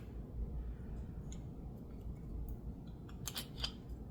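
Small metallic clicks and scrapes of a lock's key hider being worked to free a key that is stuck, a few scattered ticks and then a quick cluster of clicks about three seconds in.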